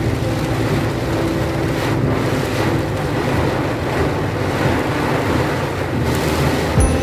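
Strong summer-storm wind buffeting the microphone: a steady rush of noise heavy in the lows, with a short knock near the end.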